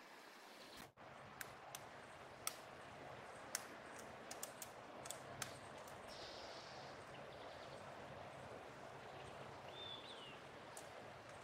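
Downy woodpecker pecking and picking at loose madrone bark: a string of irregular sharp taps in the first half, over a faint outdoor hiss. One short high bird note sounds near the end.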